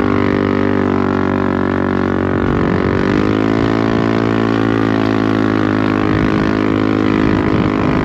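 Engine running at a steady high speed, giving an even droning note that holds its pitch.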